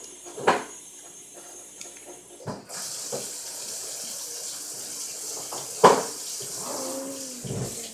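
A large plastic syringe drawing water up from a plate: a steady hiss of water and air being sucked in starts about three seconds in, with a sharp click about six seconds in.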